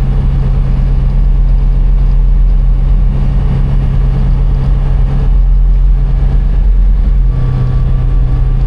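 Polaris Ranger 1000 XP side-by-side's twin-cylinder engine running steadily while driving, heard from inside the cab.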